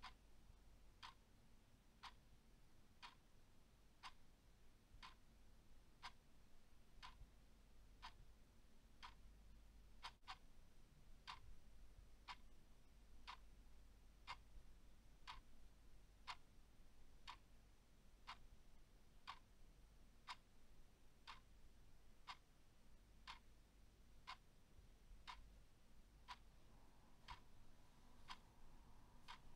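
A clock ticking steadily about once a second, each tick a short, crisp click, over a faint low hum.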